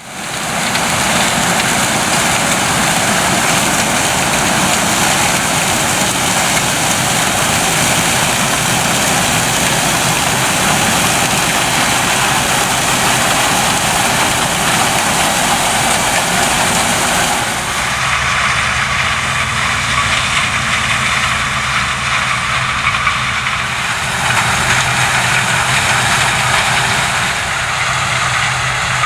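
Claas Lexion 770 TerraTrac combine harvester running steadily with its engine and threshing machinery going. The sound changes about eighteen seconds in to a steadier low hum, and shifts again a few seconds later.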